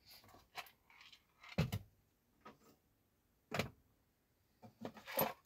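A red plastic parts bin holding a steel motor rotor, and an electrical cable, being handled and lifted off a digital scale: a string of short knocks and clatters, two of them louder, with light rustling between.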